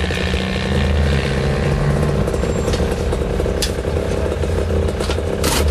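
Off-road truck engines running loud and rough, heard from inside a vehicle's cab, with a sharp crack near the end.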